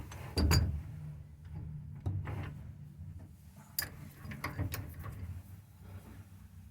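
Scattered clicks and knocks of tools and fittings being handled at a wood lathe, over a faint steady low hum.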